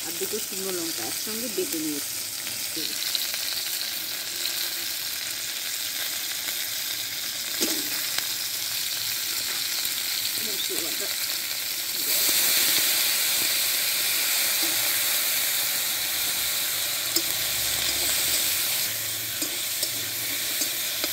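Potato, drumstick and raw banana pieces sizzling as they fry in oil in a steel kadai, with a spice paste added and stirred in with a metal spatula. The sizzle is steady and grows louder about twelve seconds in.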